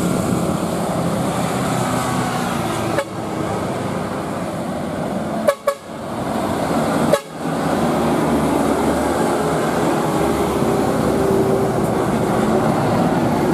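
Road traffic passing close by: motorcycle, light truck and bus engines running, with a vehicle horn honking. The sound breaks off sharply a few times in the first half.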